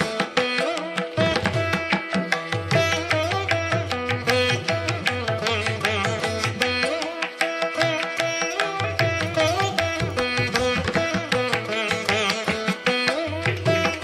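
Instrumental background music in an Indian classical style: a melody line that glides and bends between notes over a steady drone, with quick percussive strokes throughout.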